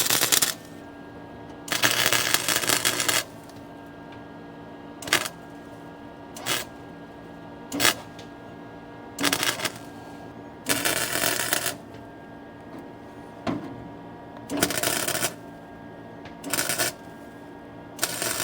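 Welding arc crackling in short bursts, about nine tacks and stitch welds of a second or less up to a second and a half each, as seams on a car's underside floor pan are welded up, with a steady faint hum between them.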